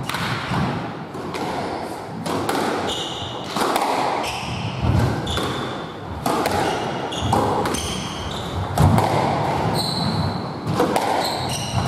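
Squash rally: the ball cracking off rackets and walls in quick, irregular knocks, with short rubber-soled shoe squeaks on the wooden court floor.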